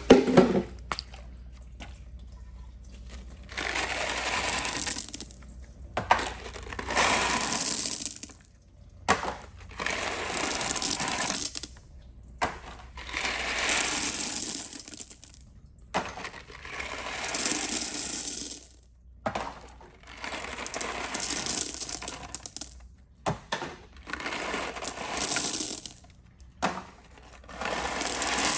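Toilet flushing again and again, a series of short rushes of water each a second or two long, with small objects clattering into the bowl.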